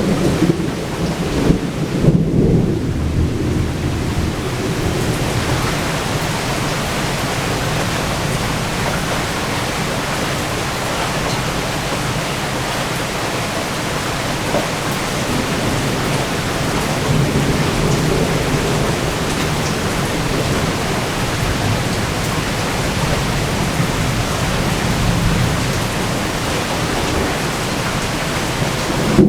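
Heavy, steady rain with rolling thunder from a severe thunderstorm. The thunder rumbles louder in the first few seconds and again past the middle.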